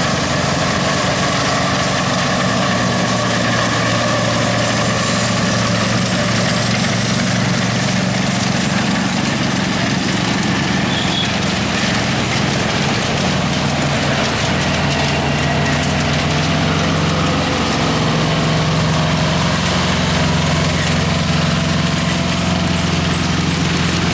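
A small engine running steadily with a low hum; its note shifts slightly about halfway through.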